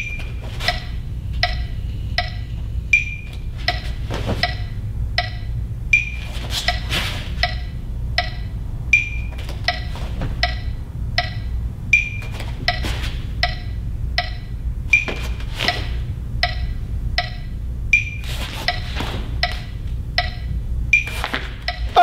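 A steady wood-block or metronome-style percussion beat of about two clicks a second, with a higher accented click every three seconds, over a low steady hum. A few louder, irregular sharp cracks stand out from the beat.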